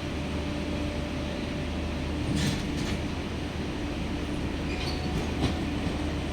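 Passenger train moving through a station: a steady low rumble with a few sharp clicks from the wheels over the rail joints, about two and a half seconds in and again near the end.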